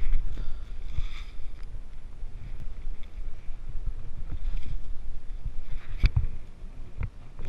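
Footsteps, knocks and rustling as someone moves through a sailboat's cabin, over a low rumble. There is a sharp knock about six seconds in and another about a second later.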